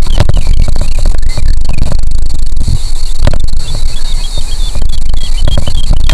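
Grasshoppers and crickets trilling in a meadow: a steady high buzz with rows of quick, short chirps, over heavy wind rumble on the microphone and a few scattered ticks.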